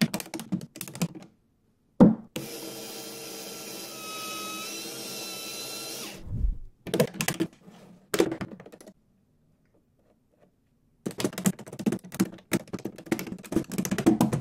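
Lego Technic pieces clicking and snapping together in quick runs of sharp clicks. A small electric motor runs steadily for about four seconds after a single knock near the start, then cuts out.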